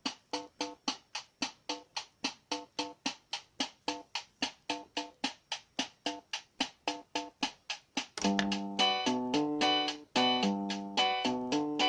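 Casio PT-30 mini keyboard playing a steady run of short, clipped notes at about five a second; a little over eight seconds in, louder held chords and melody notes come in over the same pulse.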